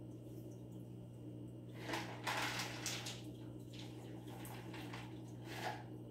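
Steady low electrical hum of running aquarium equipment. About two seconds in comes a second-long burst of bubbling, splashing water, and a shorter one near the end.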